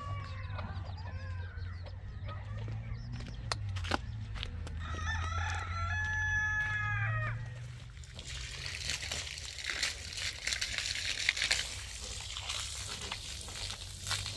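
A rooster crows once in the middle, a call of about two seconds held at a steady pitch, over a low steady hum. In the second half a crackling hiss with scattered clicks sets in.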